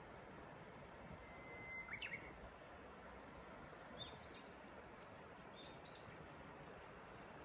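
Japanese bush warbler singing faintly: a held whistled note about a second in, ending in a quick flourish, then two shorter, higher calls around four and six seconds in, over a steady hiss.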